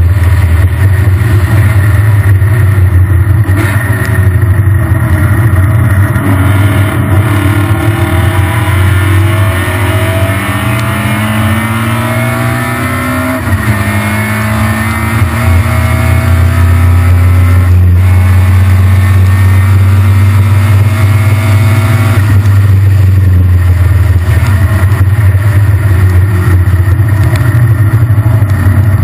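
Triumph Spitfire race car's four-cylinder engine running at racing speed, heard from inside the open cockpit over a heavy, steady low rumble of wind. The engine note climbs and drops several times with throttle and gear changes.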